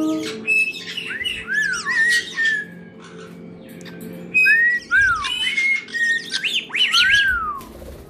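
Caique parrots calling: a run of loud whistles that rise and fall in arches, mixed with harsh squawks, in two bouts with a short lull around the middle.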